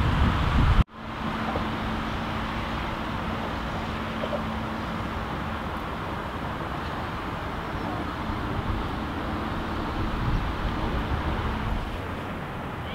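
Steady outdoor background noise, an even rumbling haze with a faint steady hum. Wind buffeting the microphone is cut off abruptly about a second in.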